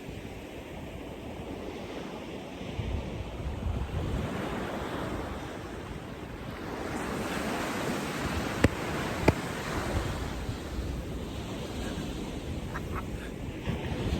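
Sea waves breaking and washing on the shore, the surf swelling a little after halfway, with wind buffeting the microphone. Two sharp clicks stand out a little after the middle.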